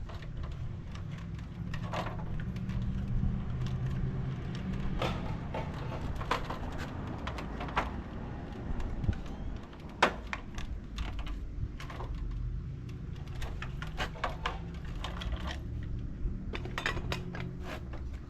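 Scattered sharp metallic clicks and clinks, with a couple of louder knocks about halfway through, over a steady low rumble.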